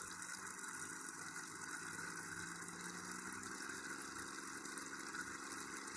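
Small USB aquarium air pump, a brushed motor driving a diaphragm, running faintly and steadily while air bubbles out of its silicone hose into a glass of water. Its hum rises slightly in pitch as the supply is turned up from about 3 to 4.2 volts.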